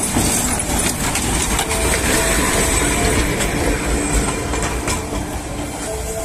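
Darjeeling Himalayan Railway B-class narrow-gauge steam locomotive and its carriages running past close by at slow speed: a loud, continuous rumble and hiss with scattered clanks from the wheels on the track.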